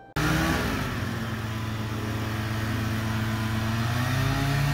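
Rotax 503 two-stroke, two-cylinder engine of a Challenger 2 ultralight running steadily during a taxi test, its pitch creeping up slightly near the end.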